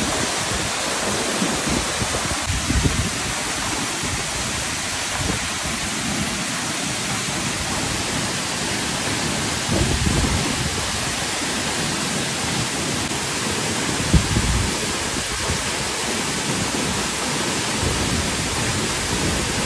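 Waterfall pouring down close up: a steady, loud rush of falling water and spray, with a few dull low thumps.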